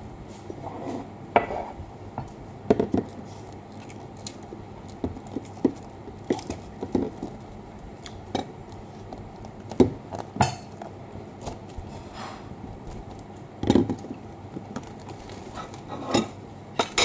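Cutlery and dishes clinking and knocking now and then, a dozen or so sharp irregular clinks, as someone eats from a plate at a table.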